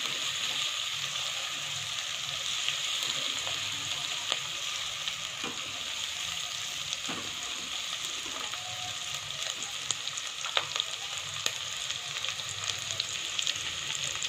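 Sliced onions sizzling in hot oil in a metal pot, stirred with a spoon, with scattered sharp clicks over a steady hiss. The onions are being fried until they just turn pink.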